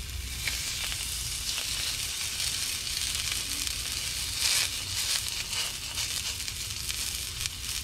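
A piece of raw fish fillet, coated in sesame oil and chopped cilantro, sizzling steadily as it sears in a hot stainless steel skillet, with a louder swell about halfway through.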